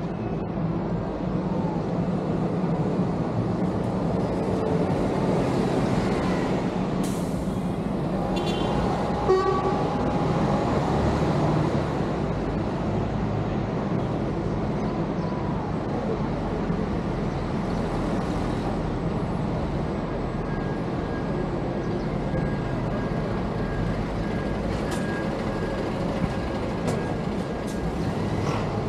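Steady road-vehicle noise, with a short horn toot about nine seconds in.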